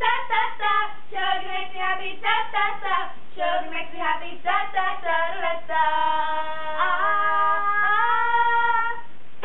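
A girl singing unaccompanied: a quick run of sung syllables, then a few long held notes stepping in pitch near the end.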